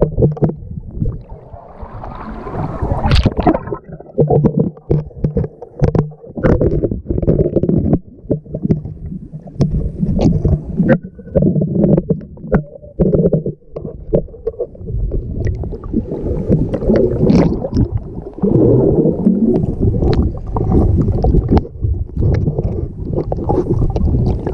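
Water churning and sloshing around a GoPro held just under the surface, heard underwater as a loud, mostly low rumble with frequent short knocks and clicks.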